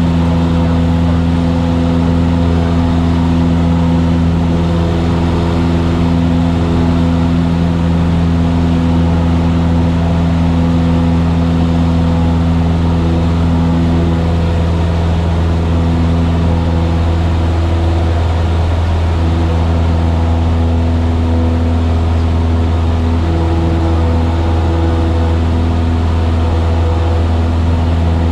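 Cessna 172's piston engine and propeller running in flight, a loud, steady drone heard inside the cabin.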